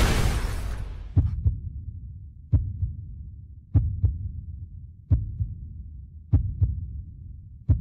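Heartbeat sound effect: slow low double thumps, lub-dub, about one beat every 1.2 seconds over a steady low hum. It opens with a loud hit that dies away during the first second.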